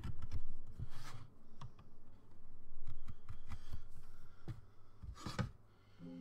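Hand carving tool cutting into a small woodcut block: irregular clicks and knocks, with short scraping strokes about a second in and again near the end.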